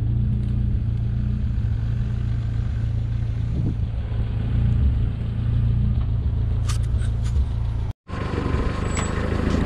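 Off-road 4x4's engine running with a steady low drone. About eight seconds in, the sound cuts out for an instant and comes back busier, with clicks and knocks over the engine.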